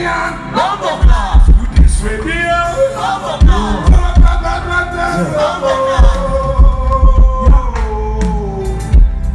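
Loud amplified music: a singing voice with held, gliding notes over a heavy, repeated bass beat.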